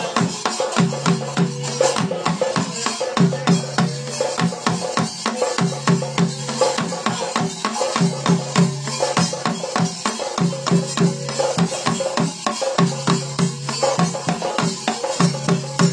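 Cylindrical ritual drums beaten in a fast, unbroken rhythm, with a deep drum tone pulsing underneath.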